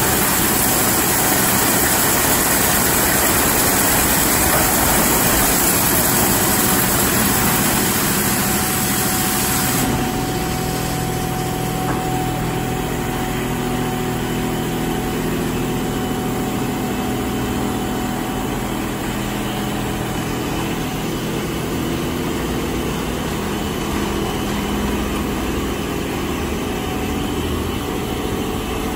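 D&S Quicksilver automatic car wash running: a loud, even hiss of high-pressure water spray that drops away suddenly about ten seconds in, leaving a quieter, steady machine hum with a few held tones while the gantry lays coloured triple foam on the truck.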